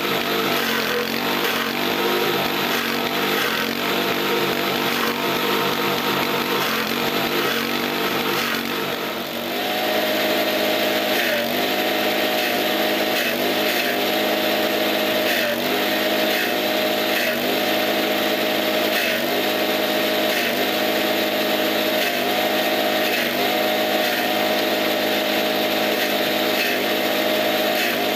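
Small petrol engine driving a forage chaff-cutter, running steadily while leafy fodder is fed into the blades. About ten seconds in the sound shifts, and after that the engine note sags briefly every second or two as it takes the load of the forage.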